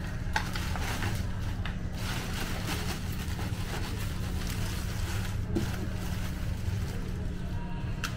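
Clear plastic bag crinkling and rustling as it is handled, with irregular crackles, over a steady low hum.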